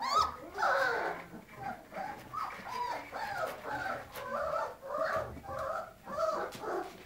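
Weimaraner puppies whining and squeaking over and over, short high cries that bend up and down in pitch.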